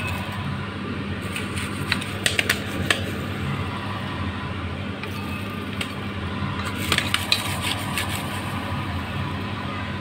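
Popped popcorn being scooped out of a pan with a spatula and tipped into a glass bowl: a few sharp clicks and knocks, in two short clusters, over a steady low hum.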